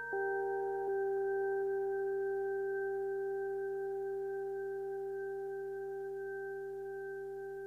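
Electronic synthesizer drone: several sustained, pure tones held together. Just after the start the chord shifts to lower notes, then it holds and slowly fades.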